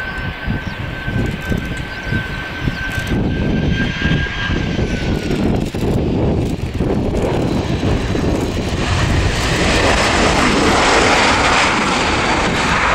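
Airbus A320-214 jet landing. A steady high engine whine over a low rumble fades about halfway through as it touches down, then a louder rushing jet noise builds toward the end as the airliner rolls out along the runway.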